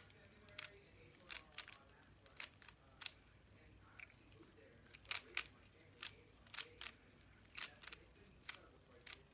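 Speed-cube Rubik's cube layers being turned by hand: short, sharp plastic clicks, about one or two a second, coming unevenly.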